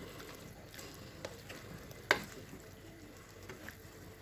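Chicken pieces frying in a pot in their own juices with no added water, giving a soft steady sizzle. A few light ticks and one sharp knock about two seconds in.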